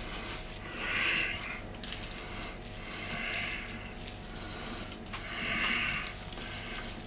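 A bare hand smearing cottage cheese across rolled-out dough, making three soft swishes about two seconds apart.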